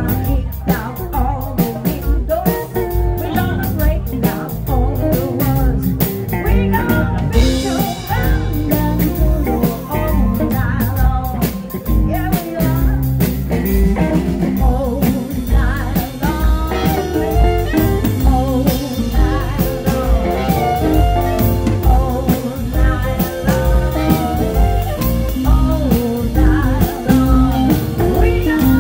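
Live blues band playing: a woman singing lead over electric bass and a drum kit keeping a steady beat.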